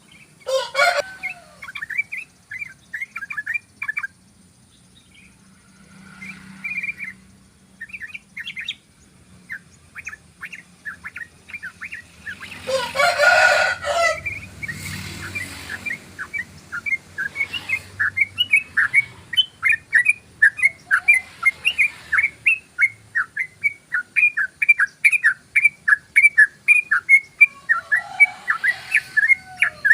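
Yellow-vented bulbul (trucukan) singing a long rapid run of short repeated chirps, about two to three a second, denser in the second half. A louder harsh burst comes a little before the middle.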